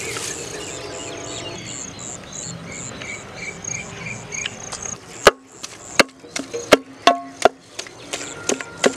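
A cricket chirps steadily, a high chirp repeated a few times a second. About five seconds in, sharp knocks start, roughly two a second, each ringing briefly: a heavy utensil striking the aluminium pot as fried banana is mashed in it.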